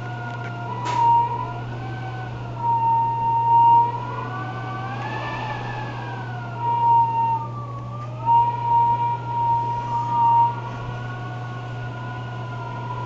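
Strong wind whistling in several wavering tones that slowly rise and fall, swelling louder for a second or so at a time, over a steady low hum.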